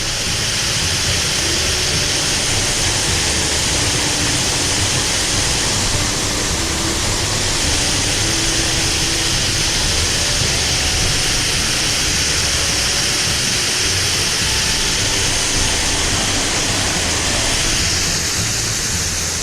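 Waterfall rushing steadily: a dense, even hiss of falling water that does not let up.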